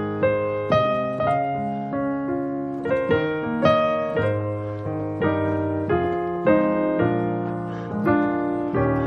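Solo piano playing a slow gospel chord progression with the melody on top, a new chord struck about every second or less and left to ring, including a D♭ major seventh with added thirteenth and a B♭7.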